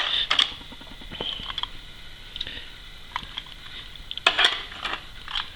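Scattered light clicks and knocks with a faint clatter, the loudest cluster about four seconds in.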